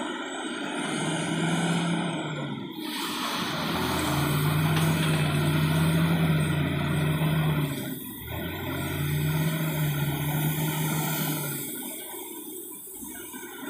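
Large wheel loader's diesel engine revving hard under load as it works a gravel pile, in two long loud pushes with a short dip between them about eight seconds in, then easing off near the end.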